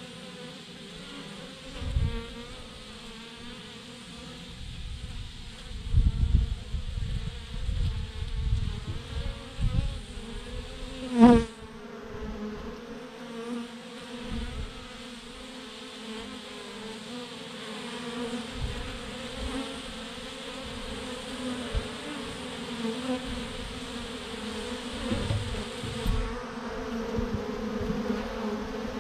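A swarm of thousands of bees clustered in a clump, buzzing steadily in a low hum. One brief, loud, wavering sound stands out about a third of the way in, and low thumps come and go.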